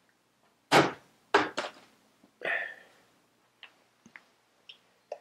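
Three sharp knocks in the first couple of seconds, a short scrape, then a few faint clicks: parts being picked up and set down on a workbench.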